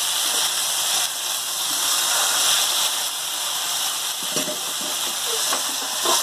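Spice-marinated chicken drumsticks sizzling in hot oil in a frying pan, a steady hiss. A few light knocks of a fork against the pan come near the end as the pieces are turned.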